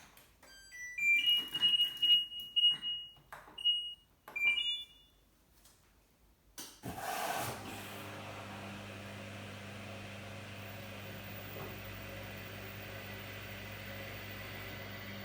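LG washer dryer control panel beeping several times at different pitches as its buttons are pressed. About seven seconds in, the newly replaced drying fan starts and runs steadily with a low hum, the smooth sound of the fresh fan working.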